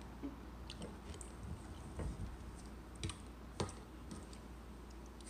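Quiet eating sounds: chewing, with a few small clicks of a fork and spoon against a plate and a plastic bowl. The clearest clicks come about two, three and three and a half seconds in.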